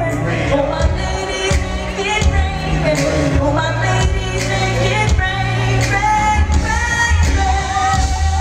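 Female R&B singer singing live into a handheld microphone over her band, with a heavy bass line and a steady drum beat.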